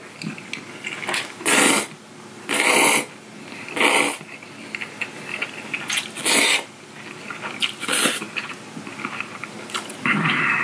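Close-miked slurping of cold spicy noodles (bibim-myeon): about five loud slurps, each about half a second long, with wet chewing and mouth clicks between them.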